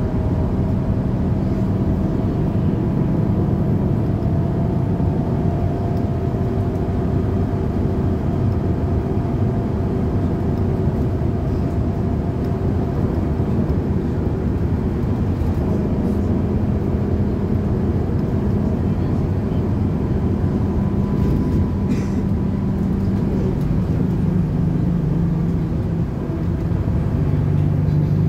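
Cabin noise inside a Volgabus 4298.G4 city bus under way: a steady drone of engine and drivetrain with road and tyre noise, whose pitch shifts several times.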